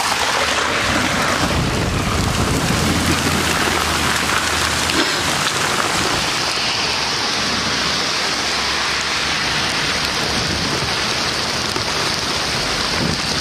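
Heavy rain and hail pelting down in a thunderstorm: a dense, steady hiss of water and ice hitting the ground and surrounding surfaces. A low rumble runs underneath from about one and a half to five seconds in.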